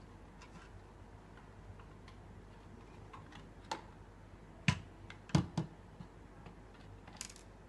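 A handful of sharp clicks and taps from plastic wall-fan parts and a small screwdriver being handled during reassembly, scattered and mostly in the second half.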